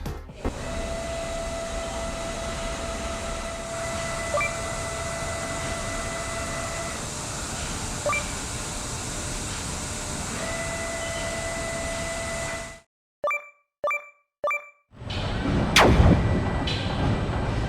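Horizontal machining center running: a steady cutting hiss with a thin whine that drops out for a few seconds and then returns. After a pause with three short beeps, the noise resumes with one loud knock.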